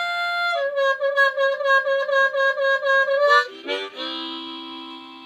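Instrumental music with no singing: a few held melody notes, a stretch of notes pulsing about three times a second, then a sustained chord about four seconds in that slowly fades.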